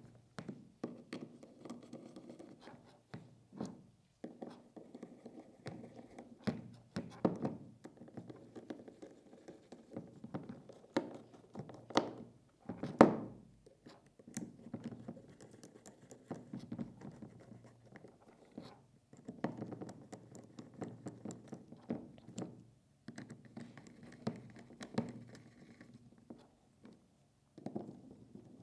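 Handling sounds of screws being driven into an SSR4 Mk2 airsoft gearbox shell with a 2 mm hex key: a run of light clicks, scrapes and knocks as the key turns and the gearbox is shifted on the mat, with one louder knock about 13 seconds in.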